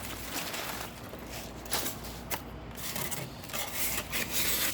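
Handling noise from unpacking a shipping crate: irregular knocks, clicks and scraping as parts and packing material are moved about, over a steady hiss.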